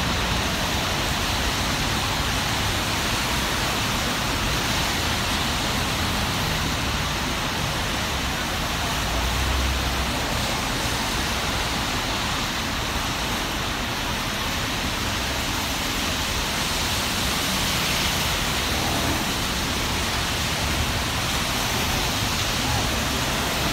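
Steady hiss of rain and of car tyres passing on a wet road.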